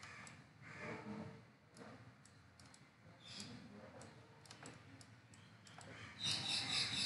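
Computer mouse clicking, scattered single clicks while curve points are selected and dragged. About six seconds in, a much louder sound effect with a fast, even flutter starts.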